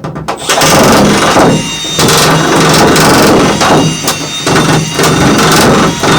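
Cordless nibbler chattering as it punches its way through the steel side panel of a van, with a few brief easings as the cut is steered.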